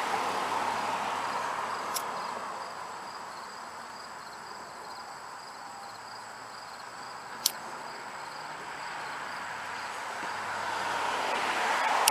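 A lighter clicked twice, about two seconds in and again past seven seconds, failing to catch because it is out of fuel. Under it, a steady background hiss fades in the middle and swells again near the end.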